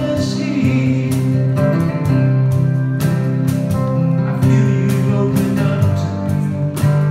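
Acoustic guitar, a nylon-string classical-style guitar, strumming chords at an even pace of about two strokes a second.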